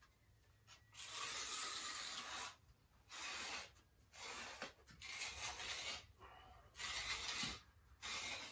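A utility knife slicing through a sheet of amp covering along a straightedge, in about six separate scratchy strokes; the first, about a second in, is the longest.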